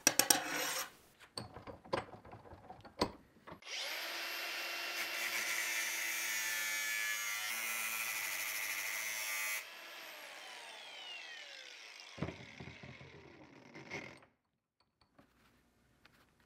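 Milwaukee Fuel angle grinder with a thin cut-off wheel cutting through an old steel planer blade held in a vise: a few knocks as the blade is handled, then the grinder runs at a steady high pitch for about six seconds while the wheel bites the steel. It is switched off, and its whine falls away over several seconds as the wheel spins down.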